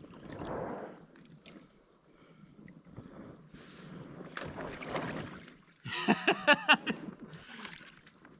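Water sloshing and lapping around an inflatable air mattress as a person shifts his weight on it. About six seconds in comes a loud, short burst of wavering, pitched sound.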